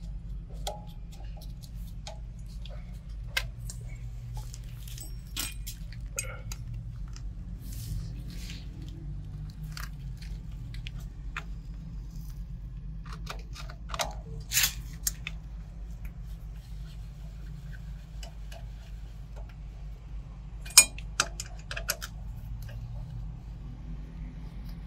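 Scattered light clicks and small metallic taps of hands and a socket driver working on a generator's alternator wiring, fitting the AVR's earth wire to the alternator frame. A sharper click comes about 21 seconds in, over a steady low hum.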